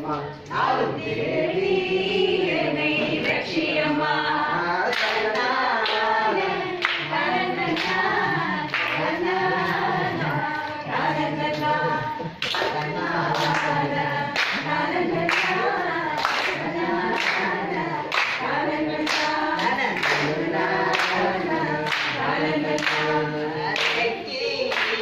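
A group of women singing together in unison, with hand claps in time about once a second.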